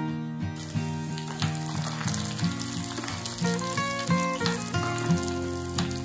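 Hot oil sizzling in a small steel tempering pan as broken dried red chillies are sautéed and stirred with a metal spoon, with light spoon clicks against the pan. The sizzle starts about half a second in, over background acoustic guitar music.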